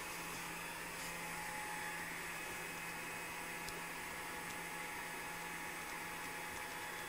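A steady low electrical hum under constant hiss, with no notes sounding.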